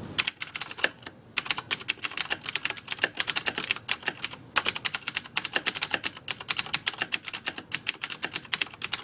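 Computer keyboard typing sound effect: a rapid, uneven run of key clicks, many a second, with brief pauses about one and a half seconds in and about four and a half seconds in.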